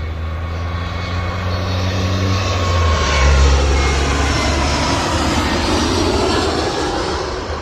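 Jet airliner passing low overhead on its landing approach. The engine noise swells to a peak about three and a half seconds in, and its whine drops in pitch as the plane goes by.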